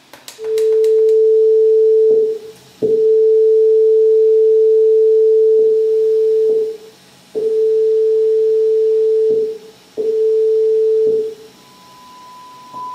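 Steady sine test tone of about 440 Hz through a loudspeaker driven by an IRS2092S class D amplifier board. The tone starts and stops four times with clicks at each switch, then a quieter 1 kHz test tone comes in near the end.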